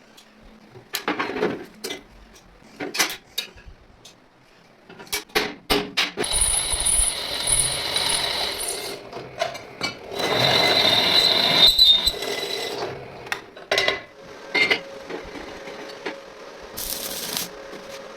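Metal tool mechanism clicking and clanking like a ratchet, with two stretches of louder whirring in the middle.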